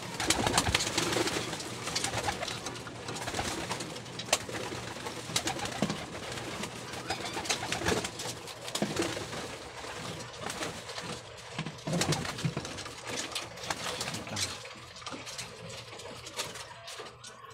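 A flock of domestic pigeons cooing in a wire-mesh loft, with wing flaps and many scattered sharp clicks and knocks as the birds jostle.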